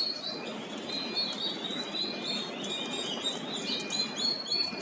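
A brood of three-day-old turkey poults peeping all together: many short, high chirps overlapping without a pause.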